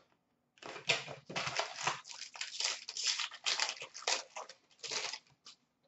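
Clear plastic wrapping crinkling and being pulled off the cards from a just-opened 2017-18 Upper Deck Ultimate hockey box, handled in quick irregular crackles that stop about half a second before the end.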